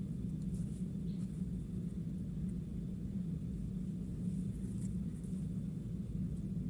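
Steady low hum with a few faint, light ticks over it.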